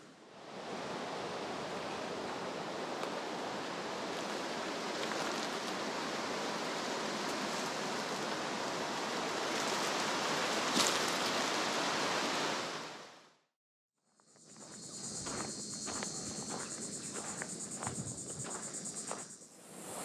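Outdoor ambience: a steady rushing noise that grows a little louder, then stops abruptly. After a moment's silence, insects trill high and fast, with faint rustles and ticks beneath.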